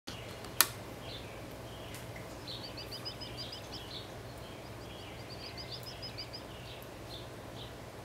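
Wild songbirds chirping: two quick runs of short high notes and a few single chirps, over a low steady hum. A single sharp click about half a second in is the loudest sound.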